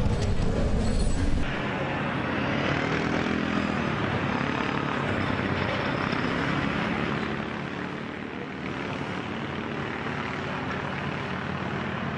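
Onboard a Top Fuel nitro funny car: a heavy low rumble cuts off sharply about a second and a half in. After that, a steady rush of wind and rolling noise remains, with a faint whine falling in pitch as the car slows down the track.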